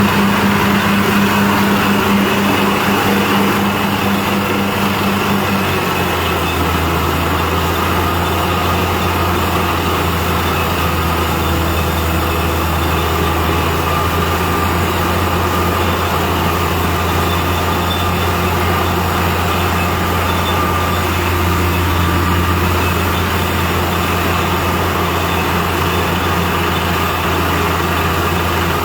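Compressor machine running steadily and loudly. About six seconds in, its low hum drops to a lower pitch and stays there.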